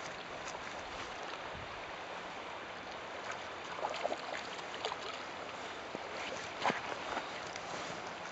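Shallow gravel-bed river running over stones: a steady rush of water with a few short splashes or clicks now and then, the loudest about two-thirds of the way through.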